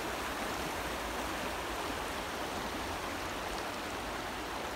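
Shallow mountain creek running over a rocky bed: a steady, even rush of water.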